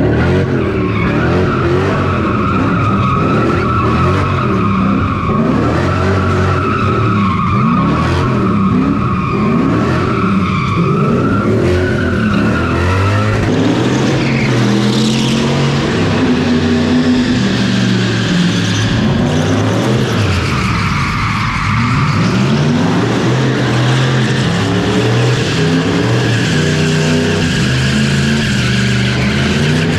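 V8 drift car being driven hard, its engine pitch rising and falling over and over as the throttle is worked. A steady tyre squeal runs through the first half.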